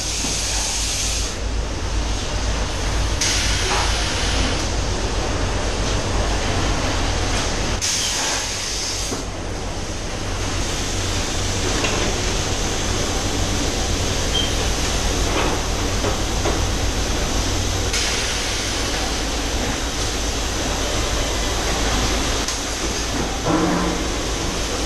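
Robotic palletizing line running: a steady low hum of conveyor and machine drives. Three clear short hisses of compressed air come in the first ten seconds and a fainter one later, typical of pneumatic grippers and actuators venting.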